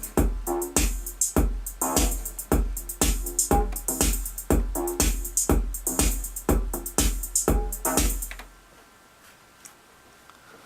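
Korg Volca Keys synthesizer playing a repetitive factory-preset pattern over a Roland TR-8 drum machine beat with a steady pulsing kick. The music stops abruptly about eight and a half seconds in, leaving only faint hiss.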